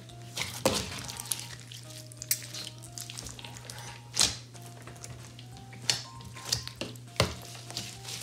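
Hands kneading and squeezing a large lump of slime with beads mixed in, making irregular wet pops and crackles, with about half a dozen louder pops among them.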